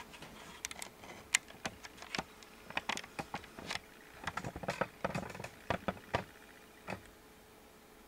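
Irregular light clicks and taps from handling the camera as it zooms in, over a faint steady hum.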